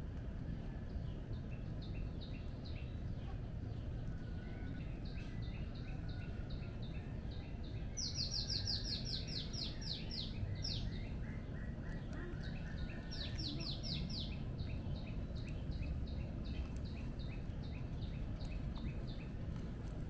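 Birds chirping, a long string of short repeated notes with a quicker run of falling notes about eight seconds in and again about thirteen seconds in, over a steady low background rumble.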